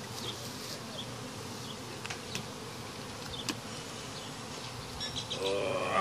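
Many honey bees buzzing in a steady hum around an opened colony that is being removed, with a few light clicks in the middle. A voice starts near the end.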